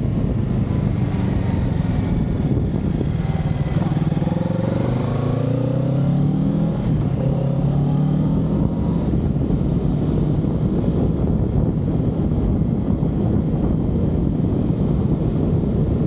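Kawasaki Z650's parallel-twin engine pulling away, its pitch climbing in a few steps as it shifts up, about four to nine seconds in, under steady wind noise on the microphone.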